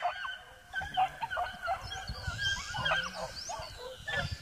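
A pack of beagles giving tongue: many short, overlapping yelps and bays, the sound of hounds working a rabbit's scent trail.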